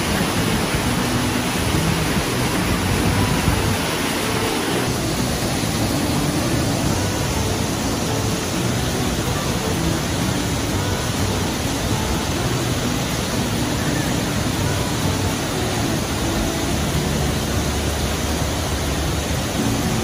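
Nunobiki Falls' Ontaki (male falls) crashing into its plunge pool: a loud, steady rush of falling water, its tone shifting slightly about five seconds in.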